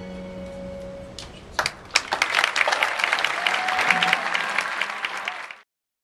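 A held keyboard chord fades out, then the audience breaks into applause about a second and a half in. The applause cuts off suddenly near the end.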